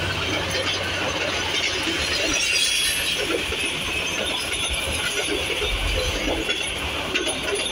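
Chinese-built passenger coaches of an express train rolling past, with the steady running noise of their wheels on the rails.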